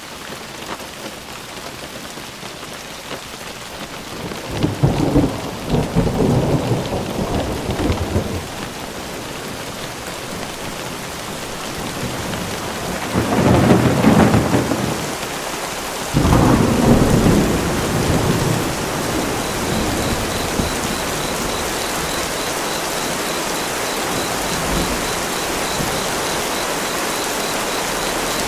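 Steady rain with thunder rolling in three times: a long rumble a few seconds in, then two more just past the middle. The rain hiss grows a little denser towards the end.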